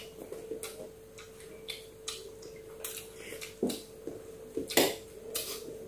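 People eating with spoons and fingers: irregular small clicks and scrapes of spoons on plates, with chewing. The loudest click comes about five seconds in, over a faint steady hum.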